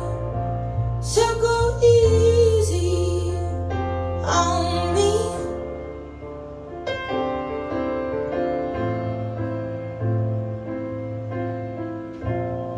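Recorded song played through a pair of Audio Physic floor-standing loudspeakers: a woman singing over piano and a low sustained bass. Her voice drops out about five seconds in, and the piano plays on alone.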